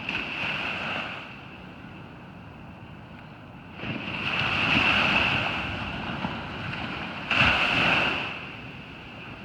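Ocean surf breaking on a beach: a steady wash with two louder waves breaking, the first building about four seconds in and the second arriving suddenly about seven seconds in.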